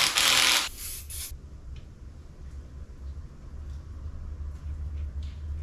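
Packaging rustling loudly for about the first second as hands handle a new cam chain tensioner, then quieter fiddling with a few faint small clicks over a steady low hum.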